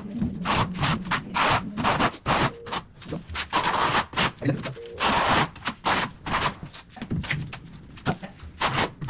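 Steel trowel scraping and spreading tile adhesive over the back of a large ceramic tile in a quick, irregular series of short strokes.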